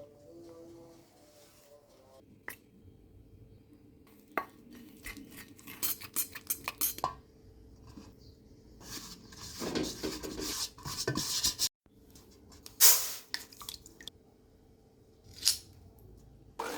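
Kitchen bowls, utensils and glassware clinking and tapping while cake ingredients are handled: irregular taps, a quick run of clicks, and a couple of louder knocks. A small electric motor starts running right at the end.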